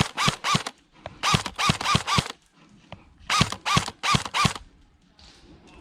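A crow cawing in three quick series of about five harsh caws each, with short pauses between the series.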